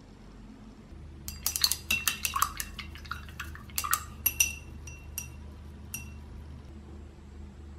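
A paintbrush swished in a glass jar of rinse water, clinking against the glass. A quick run of small ringing clinks lasts about three seconds, then come a couple of single taps.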